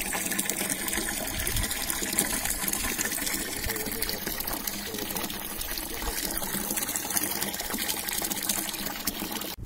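Water gushing from a hose into a partly filled metal water trough: a steady splashing pour.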